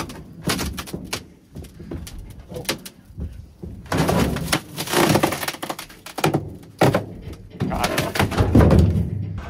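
Fiberglass boat hull cracking and crunching as broken sections are stepped on and twisted apart inside a steel dumpster, with sharp snaps and scrapes. The densest crunching comes about four seconds in and again near the end.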